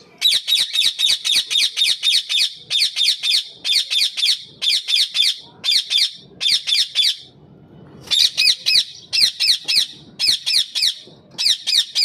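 Indian ringneck (rose-ringed) parakeet calling: loud, high-pitched repeated screeches, about six a second in quick runs, with a short pause a little past halfway.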